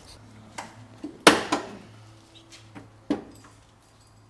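A few sharp knocks and clanks from work at a car's bare front wheel hub, the loudest a little over a second in, over a low steady hum.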